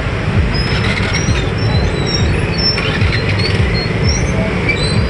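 Road traffic stuck in a jam: vehicle engines running with a steady low rumble under an even hiss, and a few short high-pitched squeaks.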